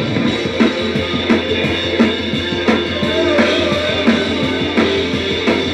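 Rock music with the drum kit to the fore: kick drum and snare striking a steady beat over a sustained bass line.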